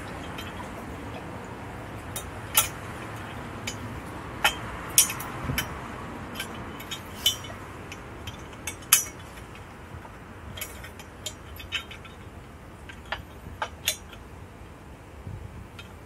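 Irregular metallic clicks and clinks of bolts, washers and the steel crash-cage bar being handled while a bolt is started by hand into the motorcycle's frame, a few of them sharper and louder than the rest.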